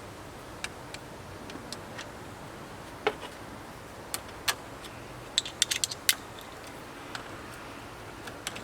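Scattered metallic clicks and clinks of hand tools on a battery clamp and cable, with a quick run of several clicks about five and a half to six seconds in.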